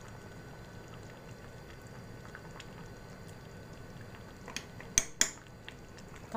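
Chicken curry in coconut milk simmering in a pan with a faint, steady bubbling. About four and a half seconds in come a few sharp clinks as a spoon knocks against the pan, the loudest sounds here.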